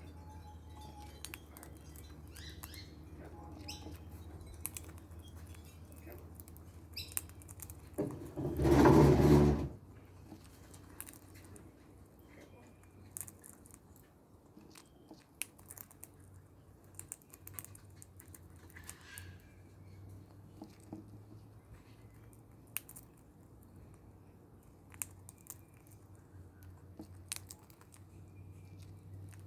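Parrot eating, with scattered sharp clicks and crunches of its beak on food. One loud, noisy burst lasting about a second and a half comes about eight and a half seconds in.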